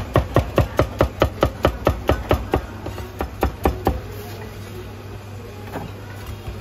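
Chinese cleaver chopping cucumber on a wooden chopping board: quick, even chops about five a second, with a short pause partway through, stopping about four seconds in. A low steady hum runs underneath.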